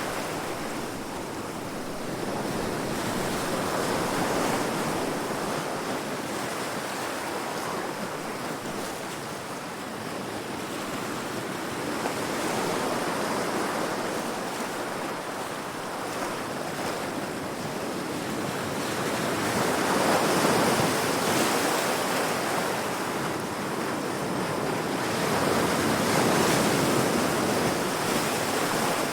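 Heavy ocean waves crashing against rocks: a continuous wash of surf that swells and ebbs, building to a peak every several seconds, with the loudest surges late on.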